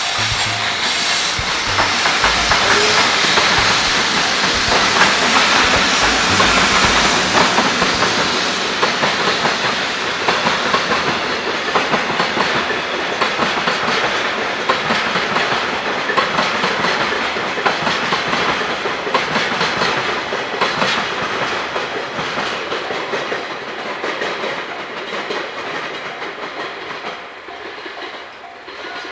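Freight train of tank wagons rolling past on the rails, wheels clacking over the rail joints, the sound easing off over the last few seconds as the end of the train goes by.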